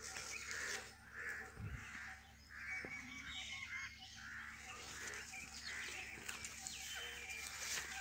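Crows cawing over and over, about two harsh calls a second, with other small birds chirping and whistling in between.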